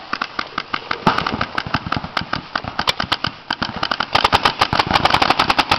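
Paintball markers firing in a rapid run of sharp pops, which grows faster and louder about four seconds in.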